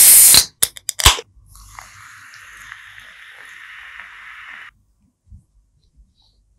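Logo-intro sound effects: a loud rush of noise for about half a second, a quick run of sharp clicks, then a steady static-like hiss for about three seconds that cuts off suddenly. A couple of faint ticks follow near the end.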